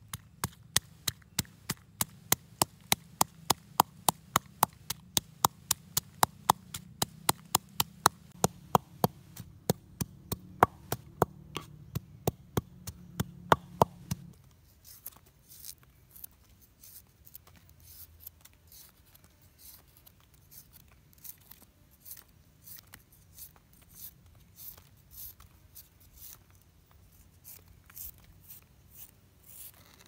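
Wooden pestle pounding in a wooden mortar: sharp, even knocks about three a second. About halfway through the pounding stops and a knife takes over, slicing on a leaf with softer cuts about two a second.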